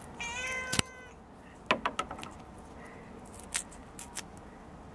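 Domestic cat meowing once near the start: a single call about half a second long, rising and then held. A few short, light clicks and taps follow.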